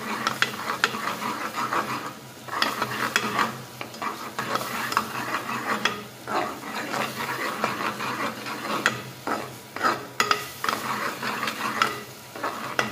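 Metal spoon stirring and scraping a thick onion-tomato masala in an aluminium pressure cooker pan, with repeated scrapes and clinks against the pan, while the masala sizzles in hot oil.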